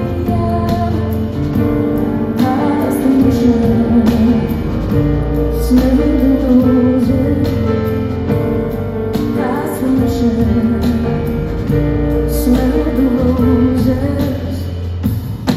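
Music: a woman singing over sustained chords and a low bass line that changes every couple of seconds.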